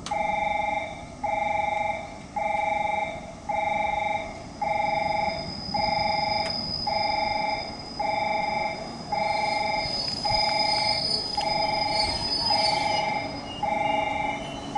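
Station platform's electronic warning bell ringing over and over at an even pace, about one two-tone ring a second, as a JR West 221 series train comes in. A faint high whine from the train runs through the middle as it brakes to a stop.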